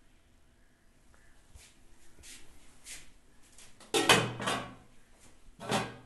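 Aluminium pot lid clanking as it is set onto a large cooking pot: a few faint taps, then two loud clanks with a short ring, about four seconds in and again near the end.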